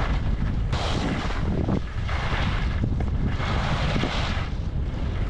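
Wind rumbling steadily on the microphone of a skier's body camera, while the skis hiss over groomed snow in about three swells of a second or so each.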